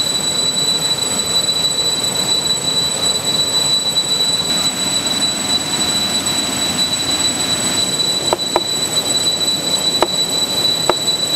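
Cicadas droning in the forest: one steady, high-pitched whine that never wavers, with a few light knocks near the end.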